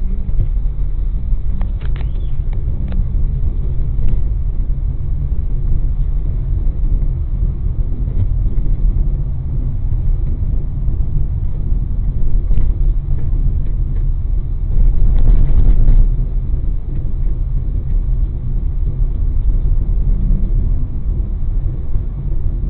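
Steady low rumble of road and engine noise heard from inside a moving car, swelling briefly about fifteen seconds in.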